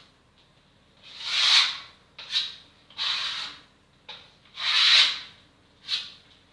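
Six rough, hissy rubbing strokes, long ones and short ones in turn, with short pauses between them. This is hand abrasion on a surface during a repair of a joint and crack.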